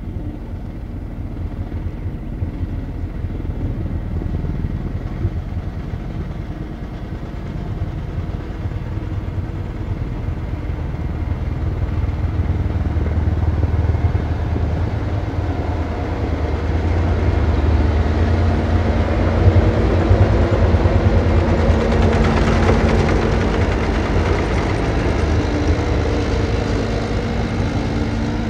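Tractor engine running steadily, growing louder over the first two-thirds and then easing off slightly.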